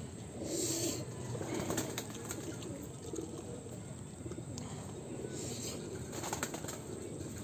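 Eating sounds: a slurp of noodles about half a second in, then a fork and fingers scraping and rustling noodles on a banana leaf, with a few light clicks. Birds call in the background.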